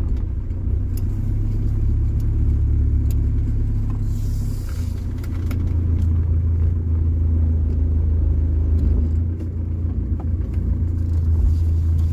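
Mercedes OM616 four-cylinder diesel engine running with a steady low rumble through a new homemade exhaust with a Saab muffler. There is a brief hiss about four seconds in.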